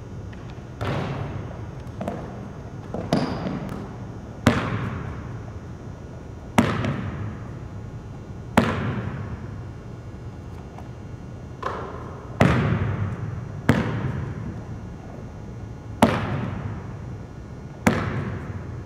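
Basketball bouncing on a hardwood gym floor: about eleven separate bounces spaced a second or two apart, each ringing out in the echoing gym.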